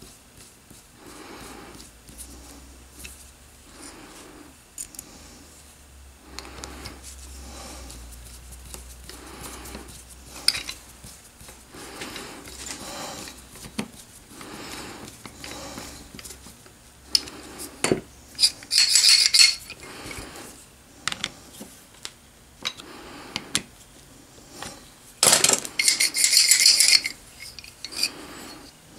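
Small metal parts and a screwdriver clinking and scraping as an aluminium knurling tool is assembled by hand, with two louder spells of metallic rattling and scraping, one a little past halfway and one near the end.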